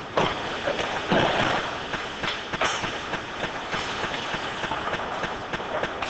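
Ice hockey in play: a steady scraping of skate blades on the ice, broken by many sharp clacks of sticks and puck, with a louder scrape about a second in.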